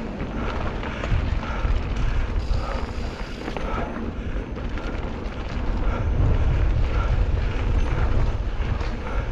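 Mountain bike riding a dirt singletrack trail: tyres rumbling over the dirt and wind buffeting the camera's microphone. The rumble grows louder in the second half.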